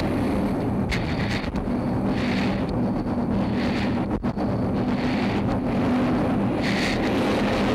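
Steady roar of a jet aircraft in flight heard from inside the cockpit, with a low hum and wind rush, and a hiss that swells about every second or so.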